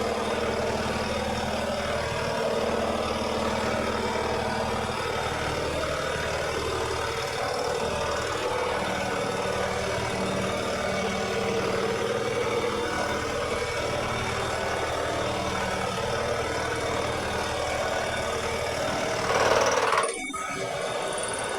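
Lawn mower engine running steadily, with a brief louder surge near the end before the sound drops off sharply.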